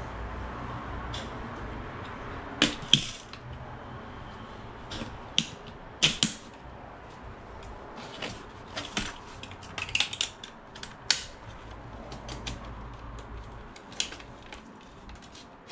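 Irregular clicks and clinks of LED grow-light parts being handled and fitted together, with a low steady hum underneath that drops off near the end.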